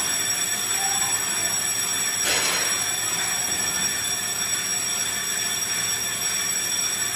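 Brake lathe resurfacing a brake rotor: the spinning rotor and cutting bits give a steady high-pitched whine of several held tones, with a brief scraping swish a little over two seconds in.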